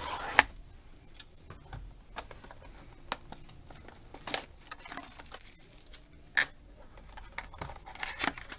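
Clear plastic shrink wrap on a small cardboard card box being cut with scissors and peeled off by hand: scattered sharp crinkles and clicks at irregular intervals.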